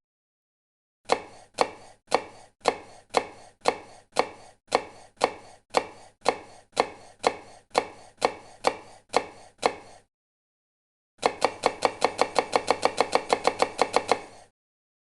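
Repeated sharp knocks, about two a second for some nine seconds, then, after a short pause, a faster run of about six a second for three seconds.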